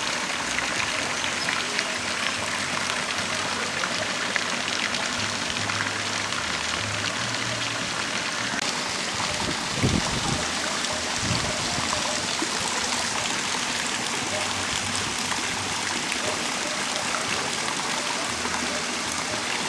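Steady rush of running water, with background music playing underneath: low notes that change step by step. One dull thump comes about halfway through.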